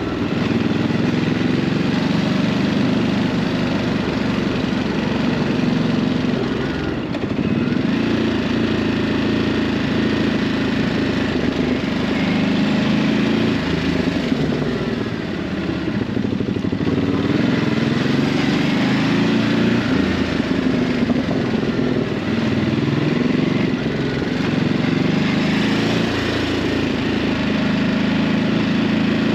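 Ducati Hypermotard 950's 937 cc L-twin engine on its stock exhaust, under way: the engine note rises and falls repeatedly with the throttle, dipping briefly twice as the throttle is rolled off.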